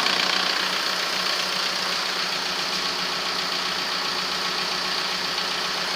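Audi A3 1.9 TDI four-cylinder diesel engine idling steadily while its injection pump's fuel quantity is being adjusted, with the quantity set too low at this point.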